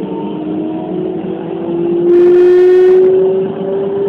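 Keikyu 2100 series electric train under way, the whine of its traction motors rising slowly and steadily in pitch as it gathers speed. About two seconds in, a loud steady horn blast lasts just under a second over the running noise.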